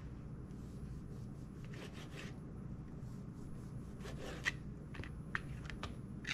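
A kitchen knife cutting through soft refrigerated biscuit dough on a plastic cutting board: faint scraping strokes, with a few sharp taps of the blade on the board in the second half. A low steady hum runs underneath.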